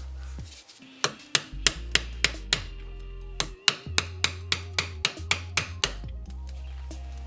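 Hammer blows on a suspension part held in a bench vise, driving out an old ball joint. Two runs of quick, sharp strikes come about three to four a second with a brief pause between, the second run longer.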